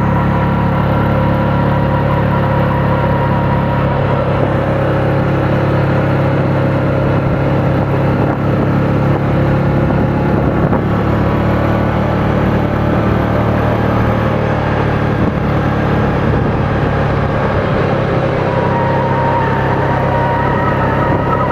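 Small 500 cc petrol engine of a child-sized sports car running at a steady speed while driving, a constant drone with a thin whine above it.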